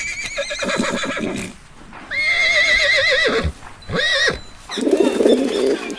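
Horse whinnying: two long, high, quavering calls that drop in pitch at the end, then a short third call. Near the end a lower, busier sound begins.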